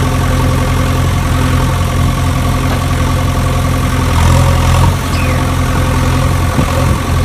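Steady, unchanging idling engine drone, low and even like a heavy diesel at idle, with faint clicks of stones about four seconds in.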